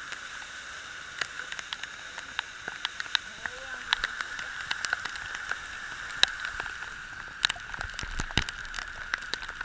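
Steady hiss of moving floodwater, with scattered sharp clicks throughout and faint distant voices.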